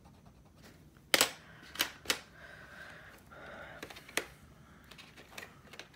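A handful of sharp clicks and taps as coloured pencils are handled, swapped and set down, the loudest about a second in.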